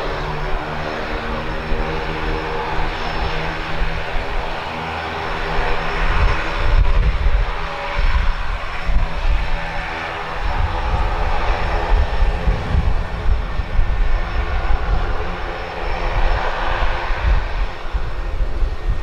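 Quest Kodiak 100 floatplane's PT6A turboprop and propeller running at low taxi power while it taxis on the water: a steady drone with a row of even propeller tones. From about six seconds in a gusty low rumble of wind on the microphone comes and goes over it.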